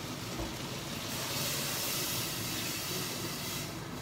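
Water poured into a hot pot of onion and tomato sautéed in oil, hissing and steaming as it hits the hot pan. The hiss swells about a second in and dies down near the end.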